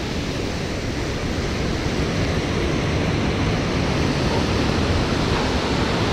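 Steady rush of water pouring through the dam's spillway gates and churning in the tailwater below, an even noise with no breaks.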